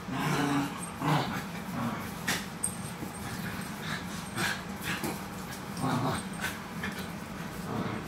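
Two small dogs play-fighting, giving short bursts of playful vocal noises, several times, with scattered sharp clicks of claws on a stone floor.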